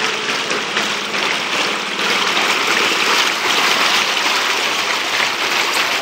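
Steady splashing and rushing of knee-deep floodwater as a makeshift board boat is pushed through it, a little louder from about two seconds in.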